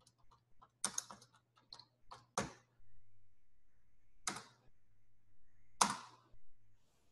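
Typing on a computer keyboard: a quick run of keystrokes over the first couple of seconds, then two louder single clicks about four and six seconds in.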